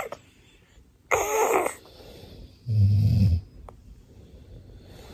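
Two snores: a harsh, breathy one about a second in, then a deep, low-pitched one about three seconds in. They come from a father snoring and a baby copying his snore.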